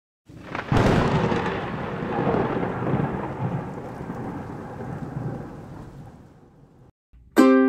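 A sharp thunderclap, then a long rolling rumble of thunder with rain, fading away over about six seconds. Just before the end, loud ukulele chords begin.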